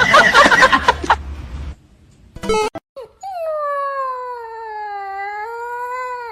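A loud jumble of noise at the start, then a dog howling: one long held howl that wavers slightly and drops away in pitch at the end.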